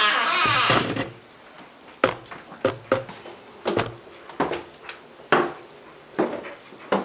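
A loud rasping creak lasting about a second, followed by slow, uneven footsteps knocking on a wooden floor, about one step every half to one second.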